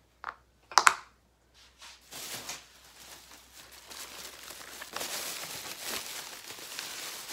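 Thin plastic takeout bag rustling and crinkling as it is lifted and handled. Two short knocks come in the first second, before the rustling.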